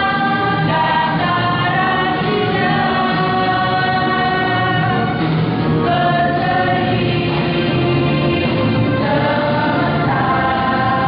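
Choir singing, holding long notes that shift to new pitches every second or two.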